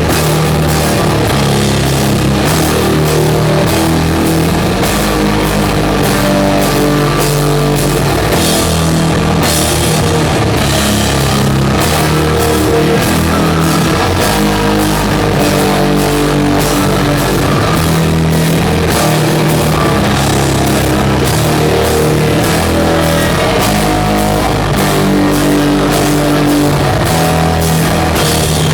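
Loud live doom metal band playing: distorted guitars and bass with a drum kit.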